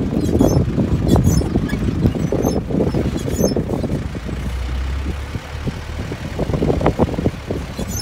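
Safari 4x4 jeep driving on a rough dirt track: the engine running under a constant low rumble, with frequent knocks and rattles from the vehicle jolting.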